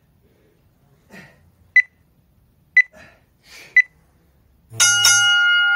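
Gym interval timer counting down: three short beeps about a second apart, then a longer, louder beep that marks the end of the work interval.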